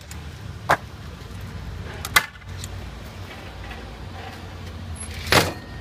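A wooden door being knocked on and handled: two sharp knocks, then a louder, longer bang near the end, over a steady low hum.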